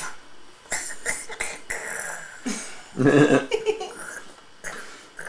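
A nearly one-year-old baby making a string of short, raspy, cough-like vocal noises, the loudest about three seconds in.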